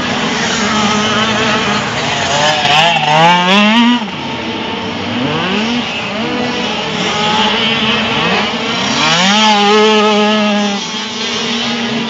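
Off-road race motorcycles accelerating hard, their engine pitch rising in steps as they shift up: one surge about three seconds in and another about nine seconds in, with other bikes running underneath.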